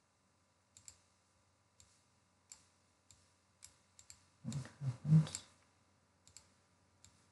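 Computer mouse clicking, a dozen or so sharp single and double clicks spread out, over a faint steady electronic hum. About halfway through comes a louder, brief low muffled sound, the loudest thing heard.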